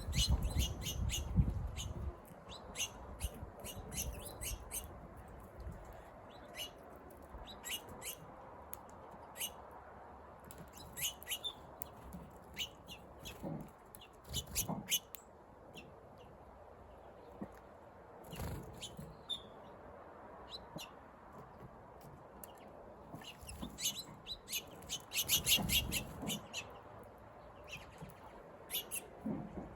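Small birds chirping in quick, high-pitched clusters, busiest near the end, with a few low thumps, the loudest in the first couple of seconds.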